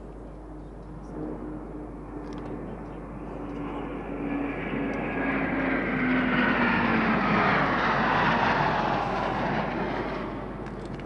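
A pair of jet fighters passing overhead. Their engine noise swells over several seconds to a peak in the middle, with a whine that drops in pitch as they go by, then begins to fade.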